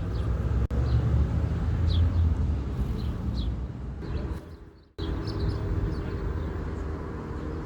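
Small birds chirping in short high calls, several times, over a steady low rumble of outdoor background noise. The recording cuts abruptly about five seconds in, and the rumble continues afterwards at a lower level.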